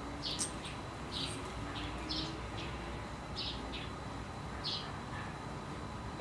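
Small songbirds chirping: short, high notes scattered irregularly, roughly one or two a second, over a steady outdoor background hiss.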